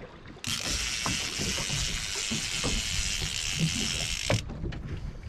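Fishing reel giving a steady high buzz for about four seconds, starting and stopping abruptly, under the load of a big hooked fish.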